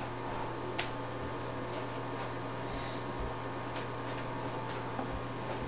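Steady electrical hum of room tone, with a few faint short clicks.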